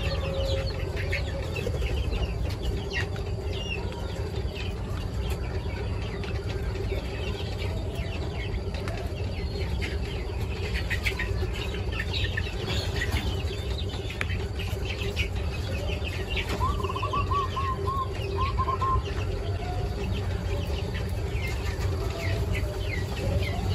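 A flock of young quails peeping with short high chirps, with a quick run of repeated calls about two-thirds of the way in, over a steady low hum.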